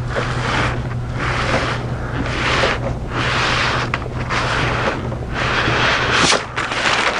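Backing sheet peeling off the adhesive mounting film and rustling as the poster is fed through a roll laminator, in repeated surges of rustling about once a second. A steady low hum runs underneath and stops about six seconds in.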